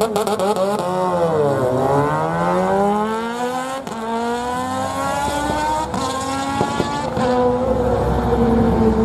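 A sportbike and a sports car accelerating hard side by side on a drag strip. The engine pitch dips about a second and a half in, then climbs steadily for several seconds before settling into a lower, steadier tone as they run away down the track.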